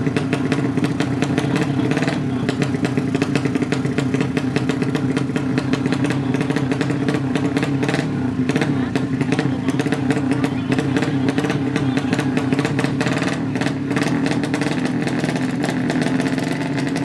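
A drag-race motorcycle's 200cc horizontal-cylinder 'sleep engine' running at a steady speed, loud and even, with no revving.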